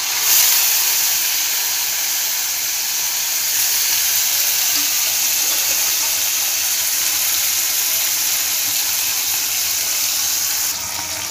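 Fish frying in hot oil in a kadai: a steady sizzle that surges just after the start as the fish go into the oil, easing a little near the end.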